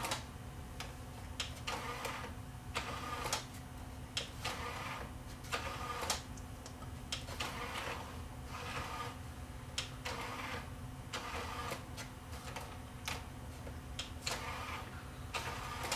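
Disc drawer mechanism of a Philips CDR820 CD recorder moving its tray out and in, a run of short mechanical whirs and clicks over a steady low hum. The drawer now moves, but the unit's drawer-position switch still reads it as open.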